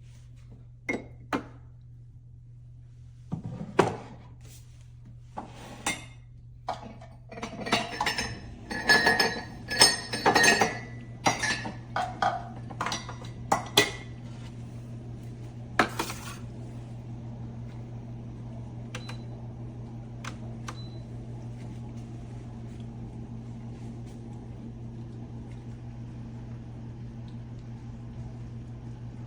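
Dishes, cups and utensils clinking and knocking against each other in a quick run of sharp clatters for about fifteen seconds, over a steady hum, then only the hum and a faint steady noise.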